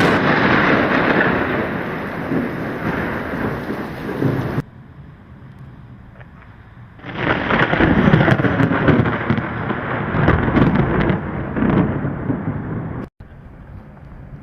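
Thunder: a sudden clap at the start that rumbles on for about four and a half seconds and cuts off abruptly, then a quieter steady hiss, and a second long rolling rumble from about seven seconds to twelve.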